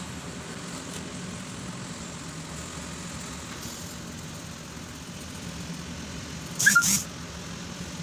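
A steady low background hum, like a motor or engine running, with one brief sharp sound about seven seconds in.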